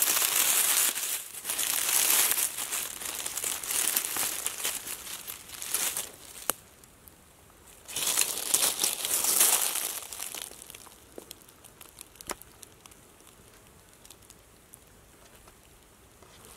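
Dry fallen leaves and twigs crackling and rustling as they are disturbed, in bursts over the first ten seconds, then only faint scattered ticks.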